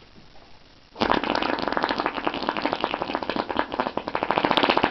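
A long, sputtering hand-fart noise made by blowing hard into cupped hands. After about a second it starts suddenly as a rapid train of flapping pops, about a dozen a second, and keeps on.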